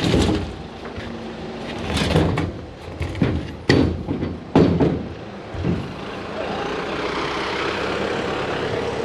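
Engine running steadily, with a series of heavy clunks and knocks in the first six seconds or so, during log unloading.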